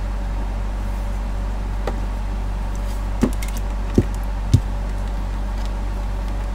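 A steady low hum, with three short knocks in quick succession in the middle as multimeter test leads are picked up and handled on a metal workbench.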